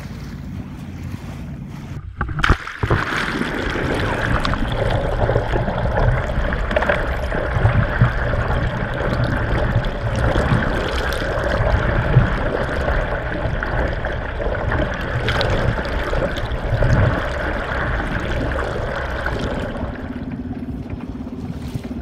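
Water rushing and bubbling around a camera held under the sea beside a moving sailboat: a loud, churning wash with many small crackles. It cuts in abruptly about two seconds in and ends near the end, when the steadier above-water sound of the boat moving through the sea returns.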